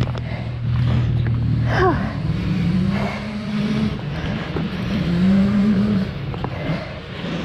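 Dirt bike engine under way on a trail, the engine note rising and falling several times as the throttle is opened and eased.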